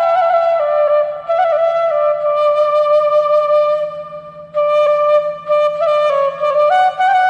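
Bengali bashi (bamboo flute) playing a slow melody of held single notes in stepwise phrases that drift downward. It fades briefly about four seconds in before the next phrase begins.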